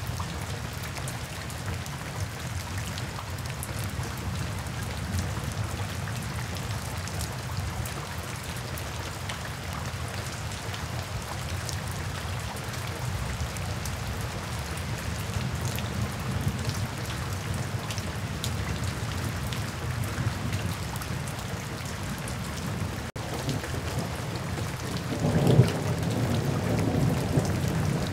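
Steady rain falling, with low rolling thunder rumbling underneath. The sound cuts out for an instant a little after two-thirds of the way through, and soon after a louder roll of thunder swells up and carries on to the end.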